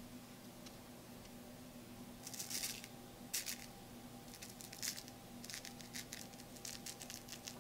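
Powdered sugar being sifted over a paper stencil: a run of short, soft, scratchy rasps in quick clusters, starting about two seconds in.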